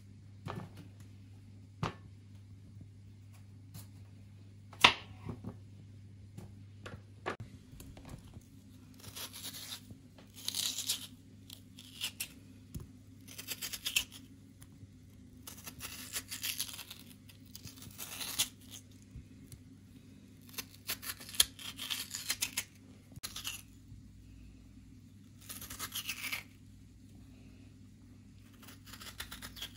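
A small kitchen knife carving the flesh out of raw peeled potato halves: repeated short, crisp scraping cuts, each about a second long. In the first few seconds there are instead a few sharp knocks on the wooden cutting board. A faint steady low hum runs underneath.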